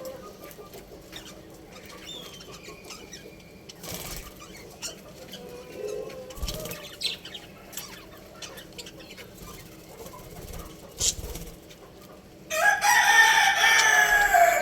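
Budgerigars chirping softly in short calls and glides, with scattered clicks and wing flutters. Near the end a rooster crows loudly for about two seconds, drowning out the budgies.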